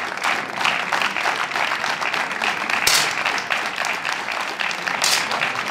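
A crowd clapping steadily, a dense patter of many hands. Two sharp cracks stand out above it, about three seconds and five seconds in.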